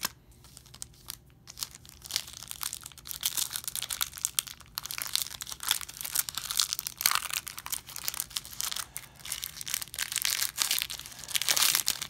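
Foil Yu-Gi-Oh! booster pack wrapper crinkling and tearing as it is ripped open by hand, sparse for the first couple of seconds, then almost continuous.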